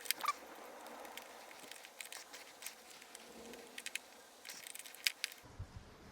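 A few faint, irregular light clicks and taps of metal hardware and hand tools being handled, some singly and some in quick little clusters.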